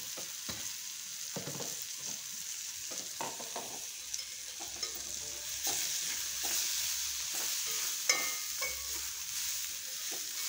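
Onion, ginger and green chilli frying with spice powders in an aluminium kadai: a steady sizzle, with a metal spoon stirring and scraping against the pan in frequent short clinks. One sharper clink comes about eight seconds in.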